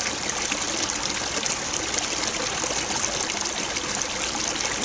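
Steady trickle of running water from a small woodland stream.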